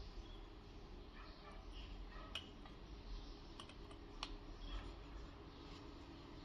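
Faint, scattered light clicks and taps, irregularly spaced, over a low steady hum.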